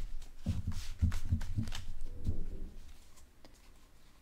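A deck of tarot cards being shuffled by hand, two halves pushed together: a run of quick rustles and soft taps that fades out about three seconds in.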